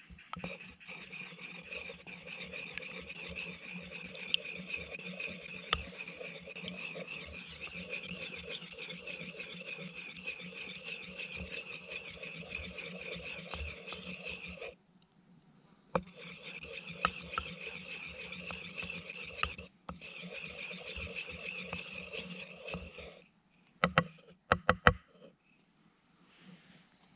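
Wooden pestle ground round in a wooden bowl of liquid, a steady squeaky rubbing of wood on wood that pauses briefly a little past halfway, then stops. A few sharp knocks follow near the end.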